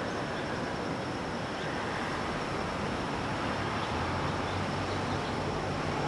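Steady wash of ocean surf, with a low droning hum joining about four seconds in.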